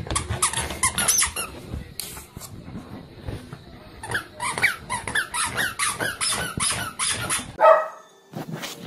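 Squeaky toy squeaking in quick succession, about three short falling squeaks a second, as a puppy paws and bites at it: one run in the first second and a half and a longer run from about four seconds in. Near the end the squeaks stop and a brief louder sound follows.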